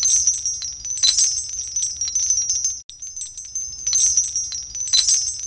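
Twinkling, sparkly chime sound effect: a dense high-pitched tinkle of quick bell-like strikes over a soft low hum. It breaks off for a moment about three seconds in and the same short loop starts again.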